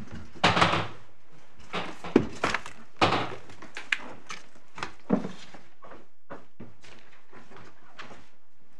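Scattered thuds, knocks and paper rustling as people stand up, gather papers and move chairs and books at courtroom benches.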